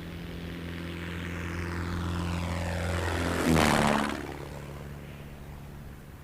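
A motor vehicle driving past close by. Its engine hum and tyre hiss grow louder, peak about three and a half seconds in with a drop in pitch as it passes, then fade away.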